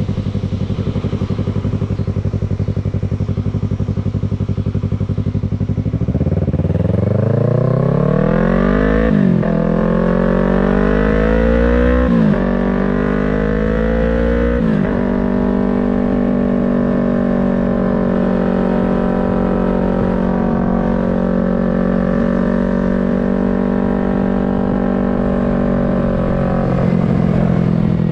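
Yamaha MT-03's 321 cc parallel-twin engine and exhaust running steadily at low revs. About six seconds in it pulls away, revving up through three quick upshifts, each marked by a drop in pitch. It then cruises at steady revs and eases off slightly near the end.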